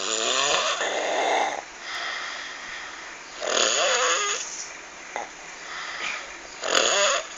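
Loud snoring: three rough snores about three seconds apart, each with a wavering, rattling pitch.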